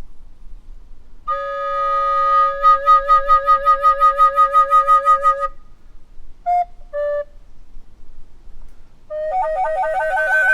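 Solo recorder playing bird-imitating contemporary music: a held note, with a second higher tone sounding over it, breaks into a fast pulsing trill, then two short chirps, a pause, and a rapid warbling figure near the end.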